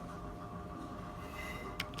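Steady background hum, then a single sharp click of a computer keyboard key being struck near the end, the first keystroke of typing.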